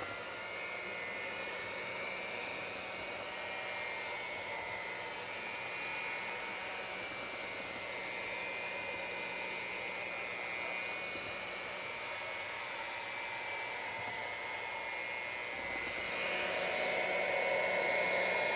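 Electric hand mixer running steadily, its twin beaters whirring through chocolate cake mix in a steel bowl. It is a continuous motor whine that grows a little louder near the end.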